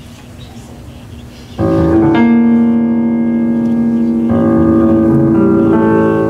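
Piano playing slow, sustained chords that come in suddenly about a second and a half in, with new chords struck about three and four seconds later, heard as video playback over the hall's sound system. Before the first chord there is only a low room background.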